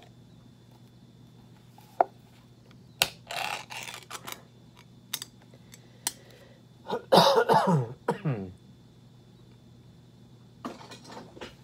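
A plastic fork clicking and scraping against the inside of an opened metal can of Vienna sausages, a few separate clicks with a short rustling scrape. About seven seconds in, a man coughs a few times, the loudest sound here.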